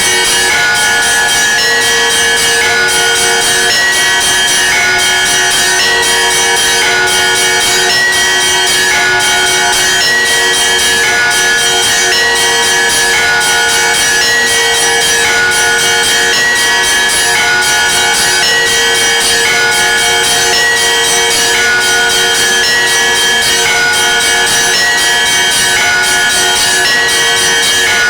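Russian church bells (kolokolny zvon) being rung continuously: small bells struck in quick, repeating rhythmic figures over a lower bell that keeps ringing.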